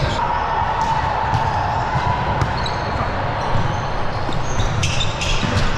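Volleyballs hit and bouncing on a gym floor: a run of short knocks, with a cluster of sharp high knocks and squeaks about five seconds in.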